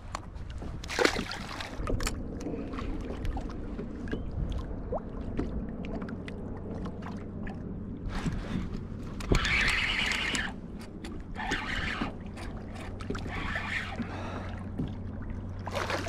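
Water lapping and sloshing against a kayak's hull in wind, with scattered small knocks and clicks. A louder rush of noise comes about nine seconds in, and smaller ones follow.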